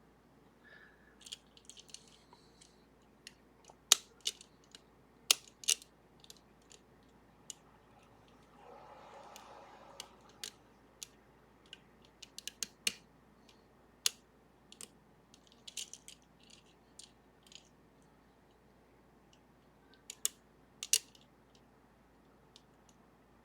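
Small, sharp metal clicks at an irregular pace from lock picks and a tension tool working the serrated levers of a Sargent and Greenleaf 4440 series safety deposit box lever lock, with a soft hiss for about a second and a half near the middle.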